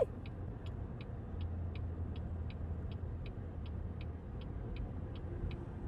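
Car turn-signal or hazard-light flasher ticking evenly, about three ticks a second, over the low hum of an idling engine, as heard inside the car.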